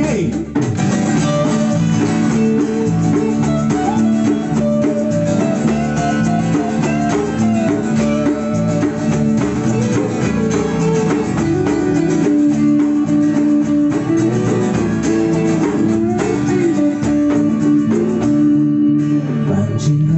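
Instrumental guitar break from a live band with no singing: a strummed steel-string acoustic guitar and an electric guitar playing together over a bass line, with held notes and a moving melody.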